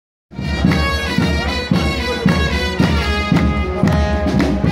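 Brass band playing, starting abruptly a moment in, with a drum beat about twice a second.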